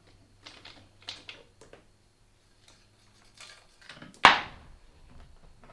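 Motorcycle drive chain, just split at its master link, being pulled off the sprockets with light metallic clinks of the links, then one sharp loud clank with a brief ring a little past four seconds in.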